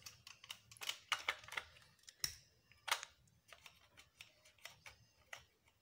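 Irregular light clicks and taps of a TV's sheet-metal stand bracket and back chassis being handled and worked loose by hand. Two sharper knocks come about two and three seconds in.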